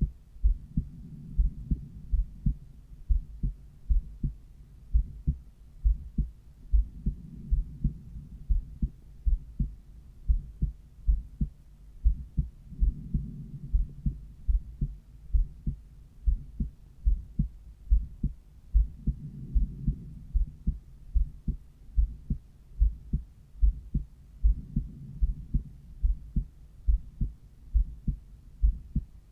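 Human heartbeat heard through an acoustic cardiology stethoscope at the pulmonary valve: a steady, regular run of low lub-dub thumps. A soft whooshing swell comes and goes about every six seconds.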